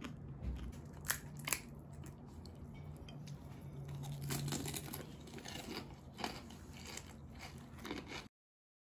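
Crisp, hollow fried fuchka shells cracking and crunching as fingers break them open, with two sharp cracks about a second in, then a metal spoon scraping and scooping through mashed filling in a bowl, with a few more crackles near the end.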